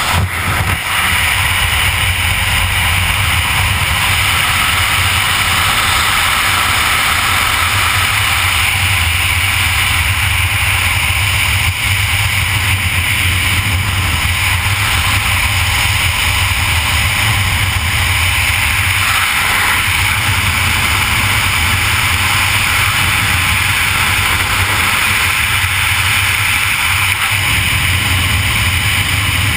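Loud, steady rush of freefall wind blasting over a helmet-mounted camera's microphone as the skydiver falls through the air.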